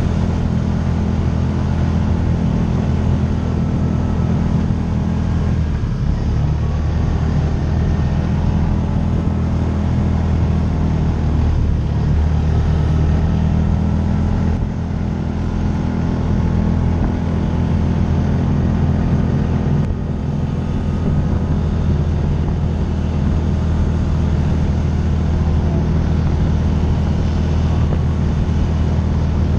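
Side-by-side UTV engine running steadily under way, its pitch drifting up and down a little with the throttle.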